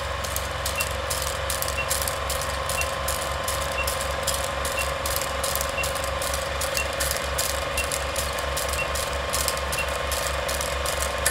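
Vintage film projector sound effect: a fast, even clatter of film running through the projector over a steady hum, with a short faint high beep once a second marking each number of the countdown.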